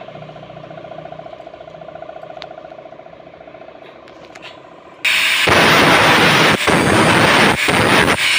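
A steady low hum with a few light metal clicks, then, about five seconds in, an abrupt switch to an angle grinder's abrasive disc grinding the end of a steel tube handle, loud and harsh.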